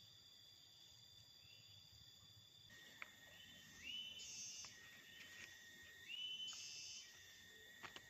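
Faint steady chirring of insects such as crickets, heard as several thin high tones. About three seconds in, a lower steady tone joins, and twice a short rising call sounds; a few faint clicks come near the end.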